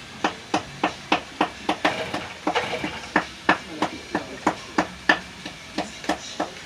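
Repeated hammering: sharp, evenly spaced strikes at about three a second, keeping a steady pace.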